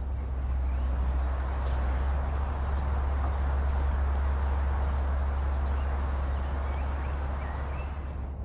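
Outdoor ambience: a steady low rumble and hiss, with faint high bird chirps now and then.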